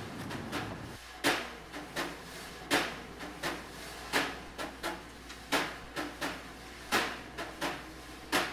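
A low outdoor rumble that stops about a second in, then a string of sharp, irregular clicks and taps, about one or two a second, over a faint steady hum.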